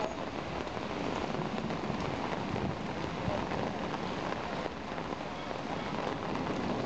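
Heavy thunderstorm downpour: rain pouring steadily onto wet pavement and shelters, a dense even hiss.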